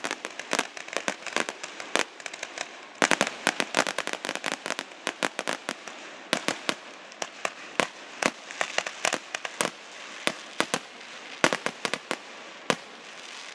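Fireworks finale barrage: a dense run of sharp bangs, several a second, over a continuous crackle. A thinner patch about two and a half seconds in is followed by a very loud cluster of bangs.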